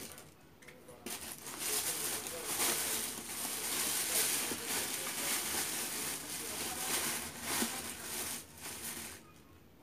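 Crinkly rustling of plastic or paper packaging handled close to the microphone, lasting about eight seconds, with a burst of small crackles and taps as items are rummaged through.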